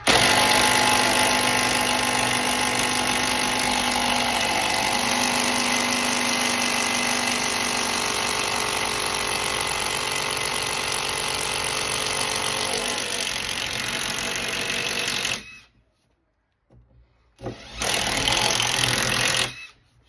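Cordless drill boring a latch hole into the edge of a wooden panel door with a long wood bit. It runs steadily for about fifteen seconds and stops, then after a short pause runs again for about two seconds.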